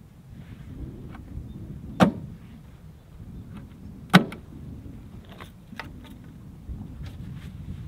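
Two loud, sharp knocks about two seconds apart, with a few lighter clicks after them, over a steady low rumble.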